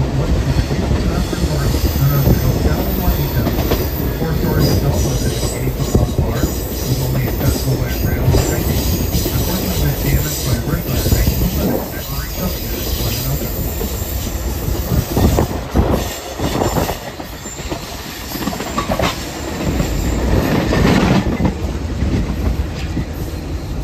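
Passenger train cars rolling on jointed rail: a steady rumble with the repeated clickety-clack of wheels striking the rail joints, and a thin wheel squeal in places.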